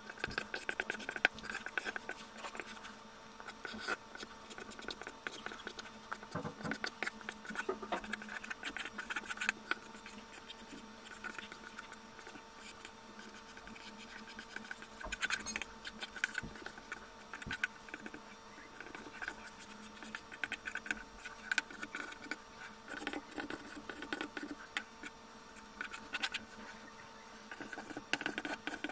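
Charcoal pencil scratching across drawing paper in quick, irregular sketching strokes, with a faint steady hum underneath.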